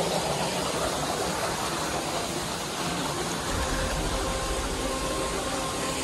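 Steady rush of flowing stream water over rocks. A faint steady hum joins about halfway through.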